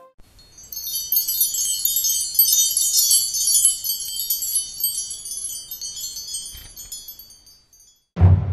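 Chimes tinkling: a dense shimmer of many high bell tones that dies away near the end.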